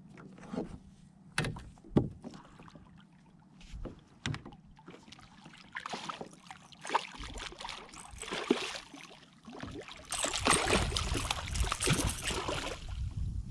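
A scatter of sharp knocks and clatter, then stretches of rushing, splashy noise that are loudest from about ten seconds in.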